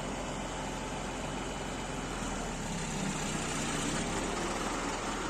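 Old SISU truck's diesel engine running steadily at idle, a deep even drone that grows a little louder partway through.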